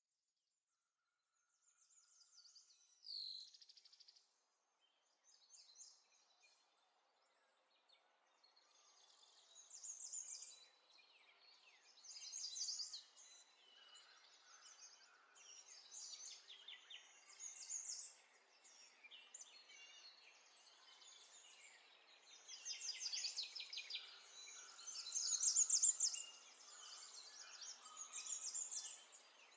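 Small birds chirping and twittering, a faint busy chorus that thickens from about eight seconds in and is loudest near the end.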